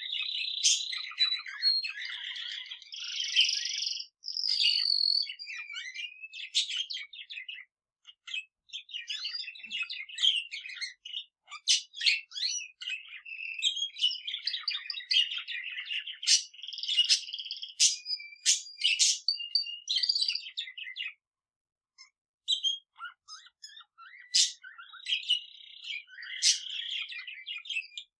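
Pet budgerigar and male canary singing together: a busy run of chirps, twittering warble and short clicks, with brief pauses about eight seconds in and again past twenty seconds.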